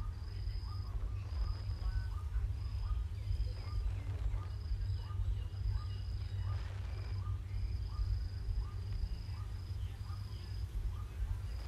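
Insects chirping: a high-pitched cricket-like trill in pulses of about half a second to a second, with short calls repeated every half second to a second, over a steady low rumble.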